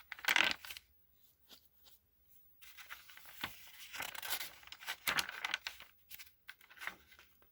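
Paper pages of a handmade journal rustling and crinkling as they are turned and handled, in short uneven bursts, with a quiet gap of about a second and a half near the start.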